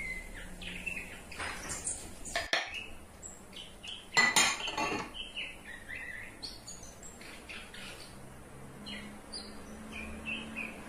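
Scattered light clinks and knocks of ceramic dishes and spoons, the loudest about four seconds in, with short high chirp-like tones between them.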